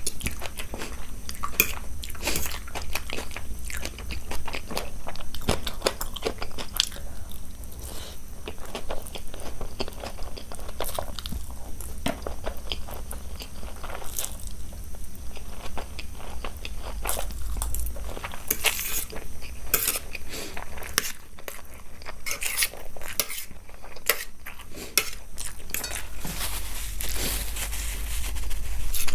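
Close-miked sounds of a person eating: chewing and biting with many irregular wet clicks and smacks, over a steady low hum.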